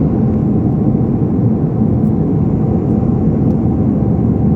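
Steady low rumble of a passenger airliner's cabin noise, engines and airflow heard from inside the cabin.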